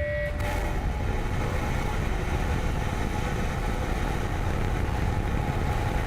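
SpaceX Starship prototype's Raptor rocket engines firing: a steady, deep roar that fills every pitch and does not let up. A held music tone fades out just after the start.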